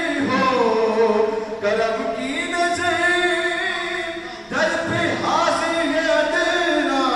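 Unaccompanied male voice singing an Urdu naat/manqabat in held melodic lines with ornamented pitch glides, breaking off briefly about four and a half seconds in before starting the next phrase.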